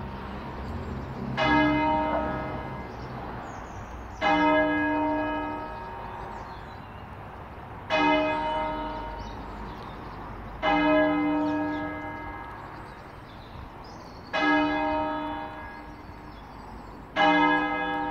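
A single church tower bell tolling slowly as a death knell: six strokes, each struck sharply and ringing on with a long fading hum, at alternately shorter and longer gaps.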